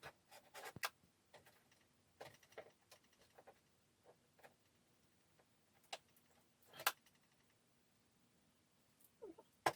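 Faint, scattered clicks, taps and rustles of hands handling the opened iMac's parts and cables, the sharpest click about seven seconds in.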